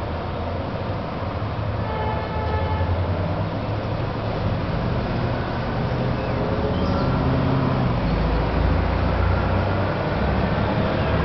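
City traffic noise, with a brief high pitched whine about two seconds in and a low rumble that builds from about eight seconds in as a heavy vehicle passes.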